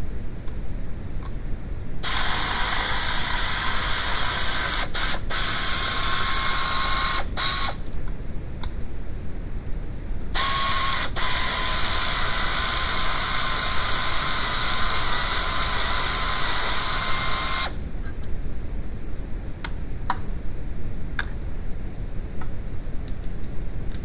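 Two long bursts of loud hissing, each starting and stopping abruptly, the first about five seconds long and the second about seven, over a steady low rumble.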